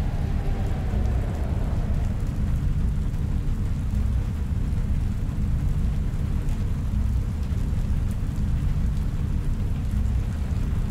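A steady, deep rumbling drone of a sci-fi room ambience soundscape, with a faint hiss like distant rain or city hum above it. A soft sustained synth tone fades out during the first second or two.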